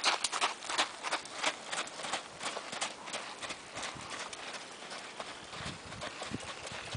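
Horse hoofbeats on sandy round-pen footing: a steady run of short strikes, several a second, growing fainter after about three seconds.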